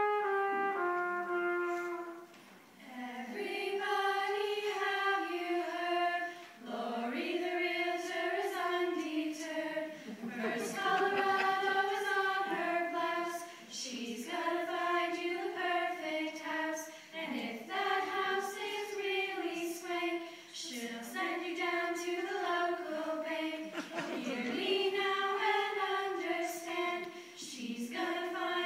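A small choir of men and women singing a cheerful song together in phrases of a couple of seconds with short breaths between.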